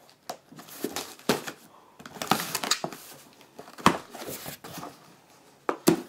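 Knife slitting the packing tape on a cardboard box and the flaps being pulled open: irregular scraping, tape tearing and cardboard rustling, with a couple of sharp knocks, the loudest near the end.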